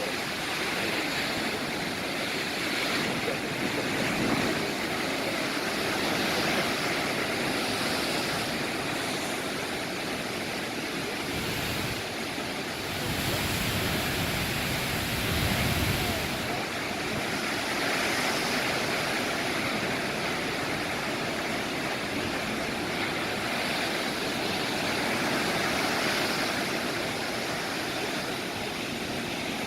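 Ocean surf: big waves breaking and washing in, the rushing hiss swelling and easing every few seconds, with a heavier low rumble about halfway through.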